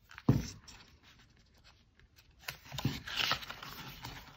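Paper pages of a paperback tarot guidebook being turned and flipped by hand: a soft thump of the book being handled just after the start, then a longer rustle of pages riffling about two and a half seconds in.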